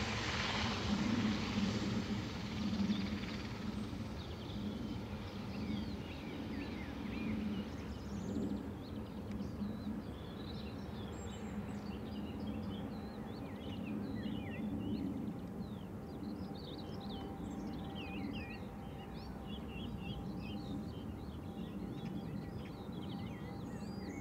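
Twin Pratt & Whitney PW127 turboprops of an ATR 72-600 at take-off power, loud at first and fading within a few seconds as the aircraft rolls away and climbs out, leaving a steady distant drone. Small birds sing over it, more and more from a few seconds in.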